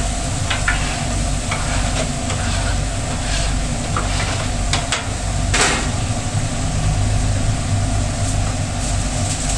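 Food truck flat-top griddle sizzling over a steady low mechanical hum, with scattered clicks and scrapes of a spatula and utensils; the most prominent is a short scrape about five and a half seconds in.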